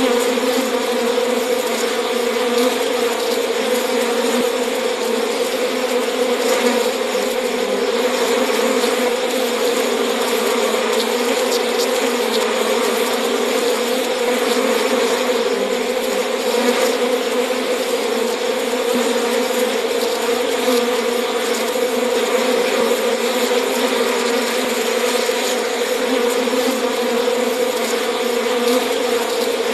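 Bee buzzing: a steady, unbroken drone that holds the same pitch throughout.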